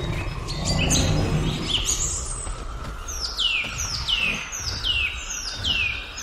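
Birds calling: scattered short chirps at first, then from about three seconds in a steady series of down-slurred whistled calls, each falling in pitch, about two a second, over a low rumbling background.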